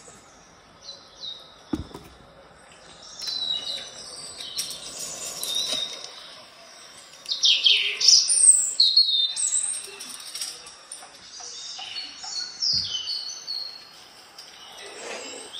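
Recorded birdsong from a cat-entertainment video playing on an Amazon Echo Show's speaker: several birds chirping and trilling over one another, loudest around the middle. Two short low thumps, about two seconds in and near the end.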